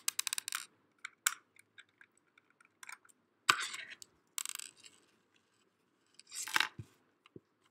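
Small clicks, taps and scrapes of a screwdriver backing small screws out of a wireless mouse's plastic underside, with a sharper tap about three and a half seconds in and brief scrapes as the parts are handled and set down.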